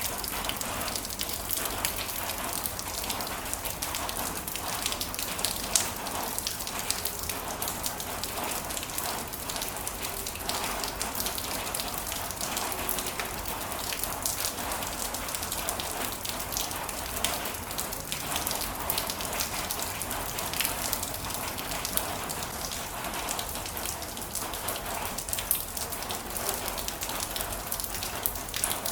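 Steady rain falling, a dense even hiss with many single drops pattering on a surface.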